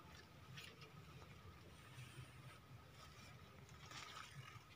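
Near silence, with faint rustling of leaves and twigs being handled in undergrowth, about half a second in and again near the end.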